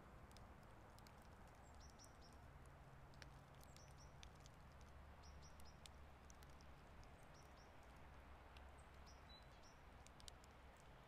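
Near silence: quiet outdoor ambience with a faint, steady low hum. Small high bird chirps come in short groups every second or two, and faint scattered ticks run throughout.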